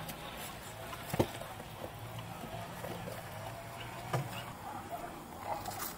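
Baked pizza crust crackling and tearing as slices are pulled apart by hand, with a few sharp cracks, the loudest about a second in and another near four seconds, over a steady low hum.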